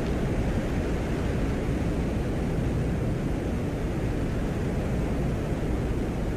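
A steady, even rushing noise, deep and without distinct events, played as the Venera 13 lander's recording from the surface of Venus; it resembles rain and wind.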